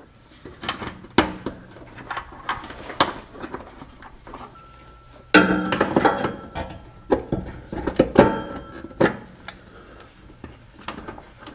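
Pliers and a metal retaining clip clicking and clinking against the parking-brake cable end and its steel bracket as the clip is worked on. The sound is a series of sharp metallic taps, with a brief ringing note about halfway through.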